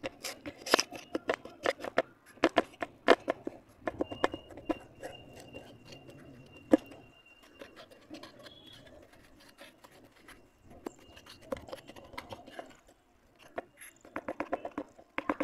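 Soaked red clay chunks crunching and cracking as they are pressed and broken apart by hand and spoon in a pan of muddy water: a run of sharp crunches, thick in the first few seconds, sparse through the middle with one loud crack, and picking up again near the end.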